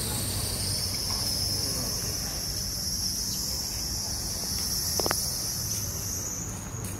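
Steady high-pitched chorus of insects, fading out near the end, over a low background hum. A single short knock about five seconds in.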